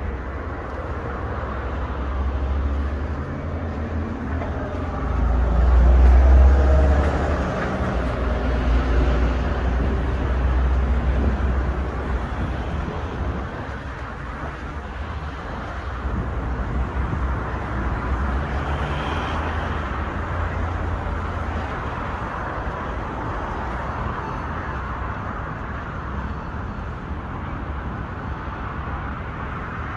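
Road traffic: cars passing with tyre noise and a low rumble, the loudest pass about six seconds in.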